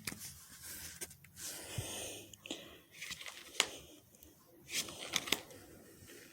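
Foil booster pack wrapper being torn open and crinkled by hand, a long rustling tear followed by several short sharp crackles as the wrapper is handled.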